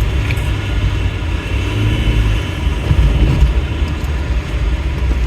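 1989 Nissan Sentra's four-cylinder engine and road noise heard from inside the moving car: a steady low rumble.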